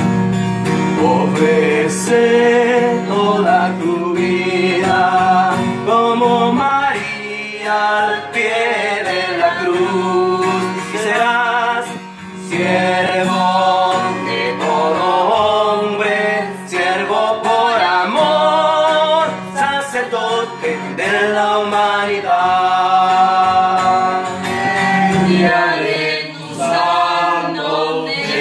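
Men and women singing a song together to an acoustic guitar.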